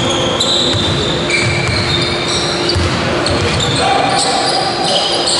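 Basketball game on a wooden sports-hall court: a ball being dribbled with low thuds, and players' trainers squeaking repeatedly on the floor in short high squeals, over general hall noise and voices.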